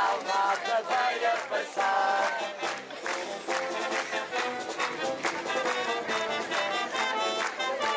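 Marcha popular band music: a lively march tune with melody notes changing over a steady beat.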